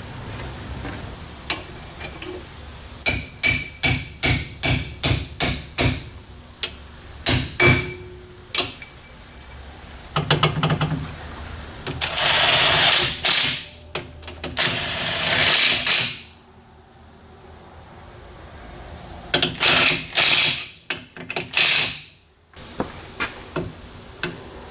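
Tool work on a GM 10-bolt differential during carrier side-shim and backlash setup: a quick run of about eight sharp metallic clicks, then several longer loud noisy bursts of a second or more.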